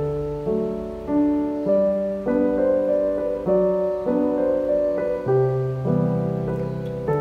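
Background piano music: a gentle, evenly paced melody with a new note or chord struck about every half second over sustained low notes.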